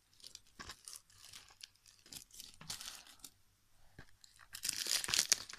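Plastic shrink-wrap on a Blu-ray case being torn and peeled off by hand: scattered faint crackles and ticks, then a louder, denser crinkling of the film about four and a half seconds in.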